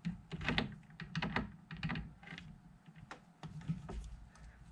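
Scrap metal workpiece being seated in a lathe chuck and the jaws tightened with a chuck key: an irregular run of light metallic clicks and knocks.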